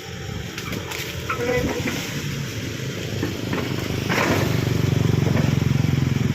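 An engine running, getting noticeably louder about four seconds in, with scattered cracks and knocks throughout.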